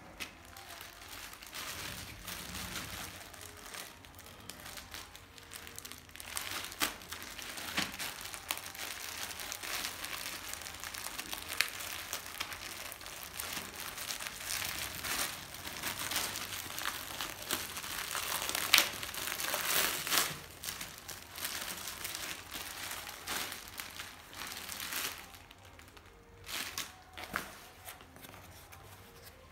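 Clear plastic polybag crinkling and rustling as hands work it open around a folded t-shirt, with many sharp crackles. It thins to a few scattered crinkles near the end.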